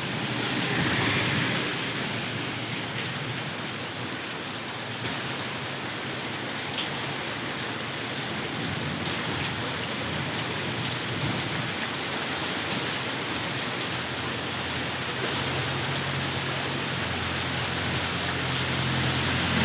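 Heavy rain pouring steadily onto a flooded road. A low engine hum comes in over the last few seconds and grows louder.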